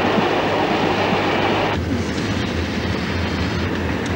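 Passenger train running along the line, a steady rush of wheel and track noise. About two seconds in the sound changes abruptly to a duller rumble with a steady low hum.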